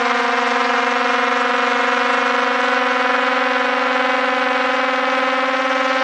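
Propellers of a DJI Air 2S drone, heard up close from a camera mounted on it: a loud, steady, high whine with many overtones, its pitch creeping up slightly.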